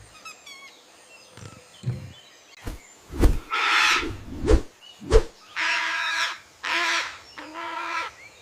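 Parrot squawking: about five harsh, rasping calls in the second half, with a few short dull knocks between them.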